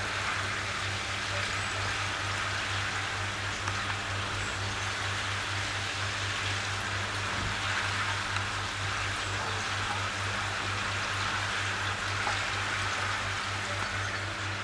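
Water splashing and trickling through a koi pond filter chamber's mesh screens, a steady, even rush like rain on a surface, with a steady low hum underneath.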